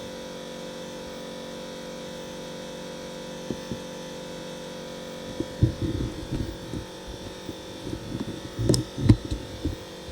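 Steady electrical hum throughout, joined about halfway in by a run of irregular low knocks and bumps from the camera being handled and turned around, the loudest just before the end.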